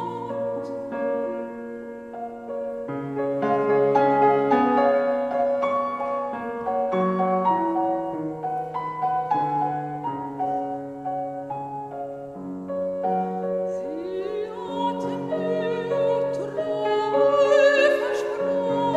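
Classical art song: piano accompaniment with a singer in a trained, operatic style with vibrato. The middle of the passage is mostly piano, and the voice comes back in during the last few seconds.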